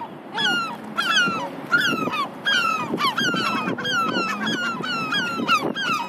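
A flock of gulls calling: many short cries, each falling in pitch, several a second and overlapping one another.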